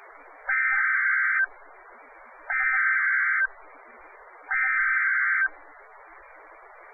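NOAA Weather Radio SAME digital header: three buzzing data bursts about a second long each, two seconds apart, over steady narrow-band radio hiss. The bursts are the coded header that opens a new Emergency Alert System message.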